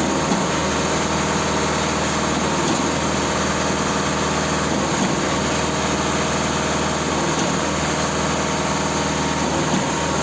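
Concrete pump machine's engine running steadily at a constant speed.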